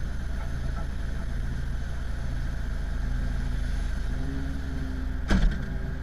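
Pushback tug engine idling with a steady low rumble, and one sharp metal clank about five seconds in as the towbar is coupled to the aircraft's nose gear.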